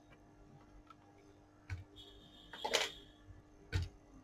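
An HP G62 laptop motherboard being handled and set down on a silicone work mat: a few light knocks and one louder clatter a little past the middle, over a faint steady hum. A thin high tone sounds for about a second around the clatter.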